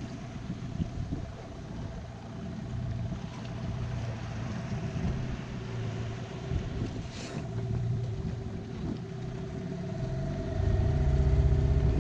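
Outboard motor on an inflatable dinghy running steadily under way, a steady hum over the rush of water. The low rumble grows louder near the end.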